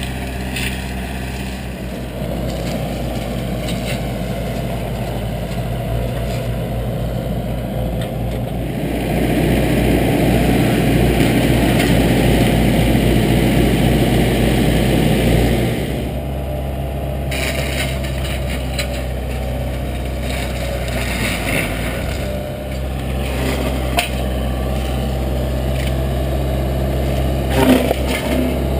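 Excavator-mounted Advance Forestry RDM 34 mulcher head, driven by a 55 hp hydraulic power pack, shredding brush, with its engine running steadily underneath. The grinding grows louder for several seconds in the middle and drops off suddenly, and there are a few sharp cracks near the end as wood is chewed up.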